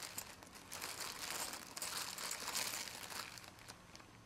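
Rustling and crinkling of small items being rummaged through in a box of junk-drawer odds and ends, with a few light clicks, fading out after about three and a half seconds.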